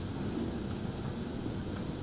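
Steady low rumble and hiss of room tone, with no distinct event standing out.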